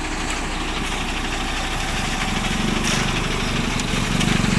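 Hanwan G5 concrete mixer truck's diesel engine running steadily, its low rumble growing louder about two seconds in.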